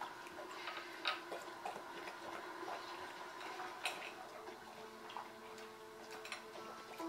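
Golden retriever eating soft food from a glass bowl: irregular licking and chewing clicks, with the muzzle now and then tapping against the glass.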